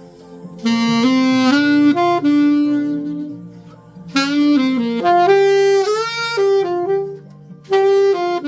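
Selmer Mark VI alto saxophone with a Theo Wanne Lakshmi mouthpiece and Ishimori reed, playing a slow melody in three phrases with short breaths between them. It is played dry, with no added reverb or effects.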